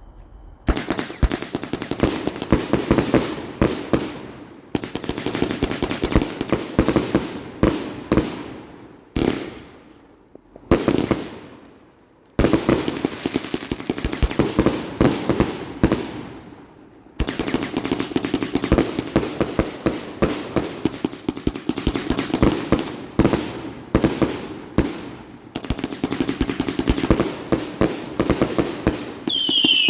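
A 120-shot firework cake firing: rapid runs of shots in quick succession, in several volleys separated by brief pauses, starting about a second in. Near the end, whistling shots with falling whistles join in.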